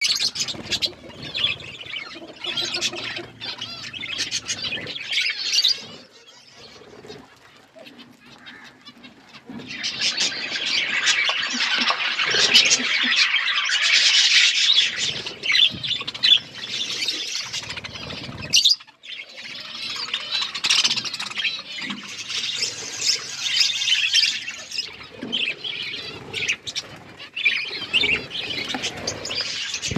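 Budgerigars chattering and chirping continuously, with squawks, in bouts that swell and ease off, with a quieter lull about a quarter of the way through.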